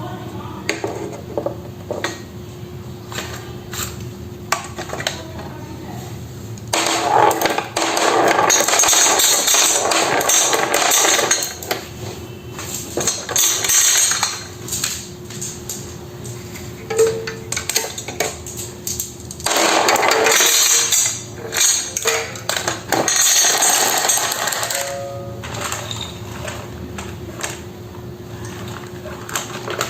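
Marbles rolling and clattering down a wooden marble-run track, with many sharp clicks and two longer stretches of dense rolling rattle.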